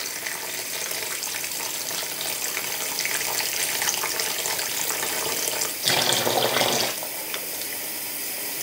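Kitchen mixer tap running steadily into a plastic washing-up bowl, the stream falling onto a sponge; the tap is being left on until the hot water comes through. About six seconds in, the rush of water gets louder for about a second.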